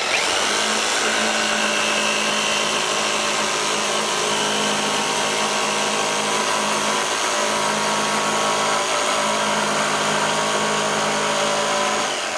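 Corded jigsaw running at a steady speed as its blade cross-cuts a clamped plywood board across the grain. Near the end the sound begins to die away.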